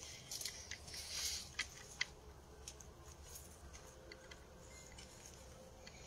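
Faint scuffing and a few soft clicks in the first two seconds, then a quiet background with scattered faint ticks.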